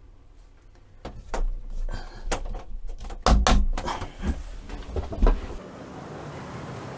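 A scatter of wooden knocks and bumps, the loudest about three and a half seconds in and another just past five seconds, then a steady hiss.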